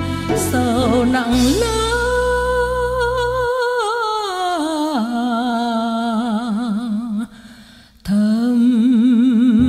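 A female voice singing long held notes with vibrato, without clear words. Soft accompaniment falls away partway through, and after a brief dip near the end the voice comes back on a lower held note.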